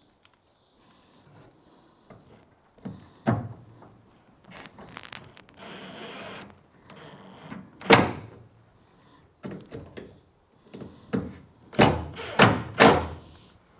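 Cordless Makita drill running in two short spurts about six to seven seconds in, among sharp knocks and clunks of tools and parts handled against the boat's metal gunwale. The loudest knocks come about eight seconds in and in a quick cluster near the end.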